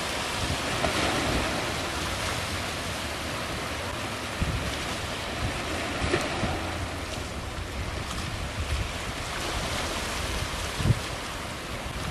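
Wind buffeting the microphone over a steady wash of sea waves, with irregular low gusty thumps, the strongest near the end.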